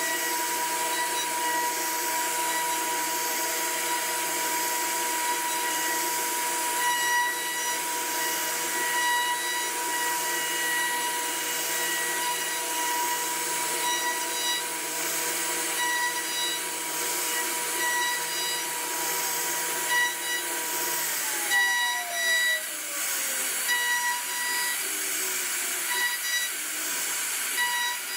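CNC router carving wood: a steady high spindle whine over a hiss of cutting. About three-quarters of the way through, one whining tone slides down in pitch as the spindle slows.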